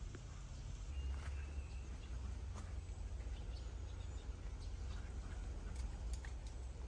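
Outdoor background sound: a steady low rumble with a few faint bird chirps and small clicks over it.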